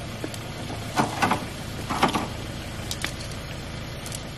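A knife and metal tongs clinking and scraping against a metal mesh grill grate while meat is cut and turned, a few sharp clinks about a second apart over a steady low hum.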